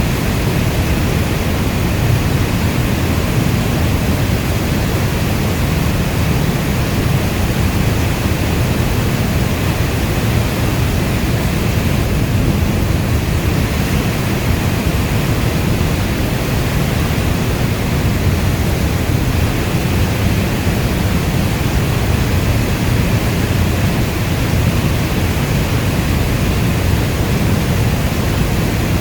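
Steady, deep noise of a heavy rainstorm, even throughout, with most of its weight low in pitch and no separate drops or thunder standing out.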